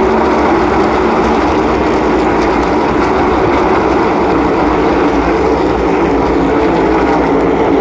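A pack of NASCAR Cup stock cars running at racing speed around the oval, their V8 engines blending into one loud, steady engine noise.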